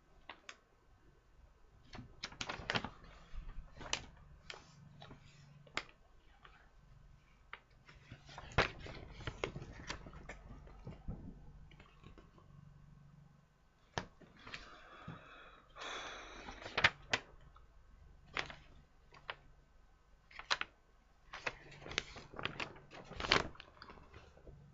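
Plastic model kit parts and packaging being handled: scattered sharp clicks and knocks, with a stretch of rustling about two-thirds of the way through.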